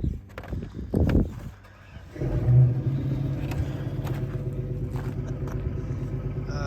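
A couple of short knocks, then about two seconds in a truck engine starts and settles into a steady idle.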